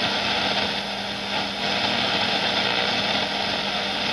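Norelco FM-AM Deluxe multiband radio's speaker giving a steady hiss of static with a low hum under it, tuned between stations on shortwave without an outside antenna.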